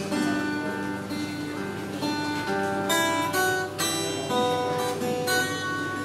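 Acoustic guitar played softly, plucked notes and chords ringing out one after another.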